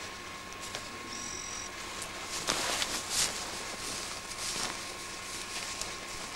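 Footsteps and clothing brushing through shrubs and spruce branches, a few louder swishes over a steady hiss. A brief high, steady whistle-like tone sounds about a second in.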